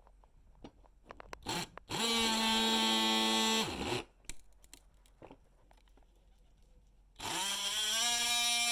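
DeWalt DCS354 brushless cordless oscillating multi-tool running in two bursts: it speeds up with a steady high buzz, stops and winds down about two seconds later, then starts again near the end. Small clicks and knocks of handling fill the gap between.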